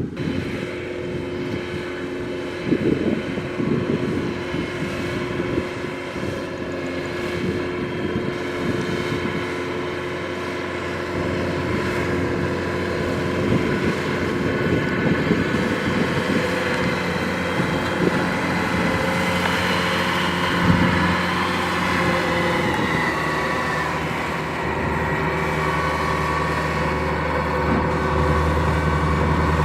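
Kubota DC-105X rice combine harvester running steadily, its engine and machinery humming together, growing a little louder and fuller from about halfway through.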